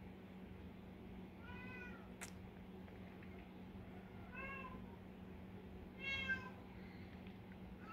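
A cat meowing, three separate meows about two seconds apart, the third the loudest, with a sharp click just after the first.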